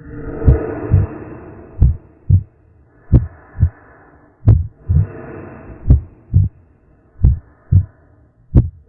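Horror sound effect of a heartbeat: paired low thumps, lub-dub, repeating about every second and a half. Between the beats a humming, creaking drone swells and fades away three times.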